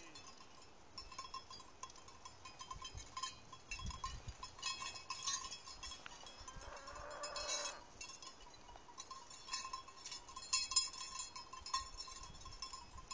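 Cowbells on a herd of cattle clinking and jangling irregularly as the animals walk, with a short drawn-out call about seven seconds in.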